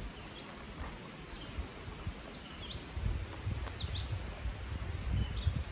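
A few short, sweeping bird chirps over low rustling and bumping as a canvas belt pouch is opened and handled; the rustling grows stronger about three seconds in.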